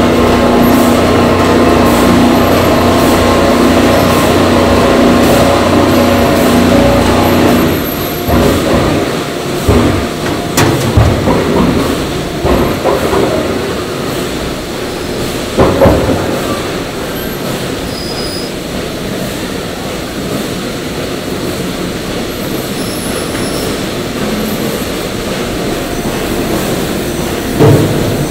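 Industrial paddle mixer for ground meat running with a steady machine hum, which stops about eight seconds in. After that come scattered thumps and clanks of the steel machinery as the mixed meat is tipped out.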